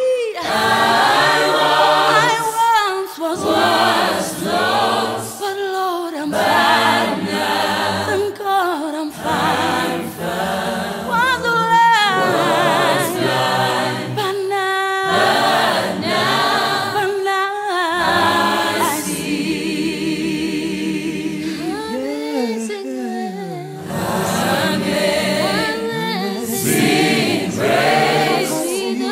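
Background music: an a cappella vocal group singing a slow Christian song in harmony, phrase by phrase with short breaths between.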